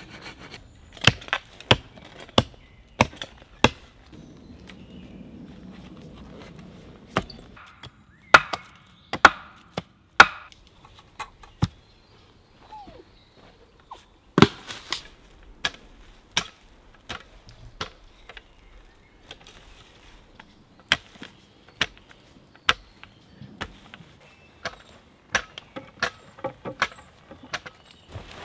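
Wooden poles and logs knocking against one another as they are laid and pressed into a stake-and-log wall: a long run of sharp, irregular wooden knocks, sometimes two or three close together, the loudest cluster about eight to ten seconds in.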